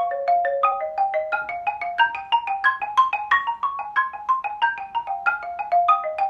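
Xylophone played with mallets in an even, continuous run of struck notes, about six a second, stepping up and down in pitch: a practice exercise.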